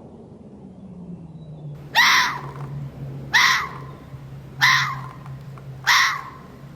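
Animal sound played as a giraffe's call: a low steady hum, with a short harsh call repeated four times, about every 1.3 seconds, starting about two seconds in.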